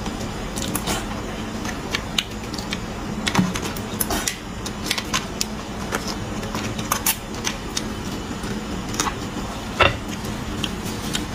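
Metal fork clicking and scraping inside a cut marrow bone as the marrow is dug out: a run of irregular sharp clicks, with one louder clack near the end.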